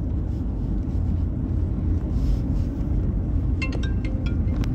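Steady low road and engine rumble inside a moving car's cabin, with a few short clicks near the end.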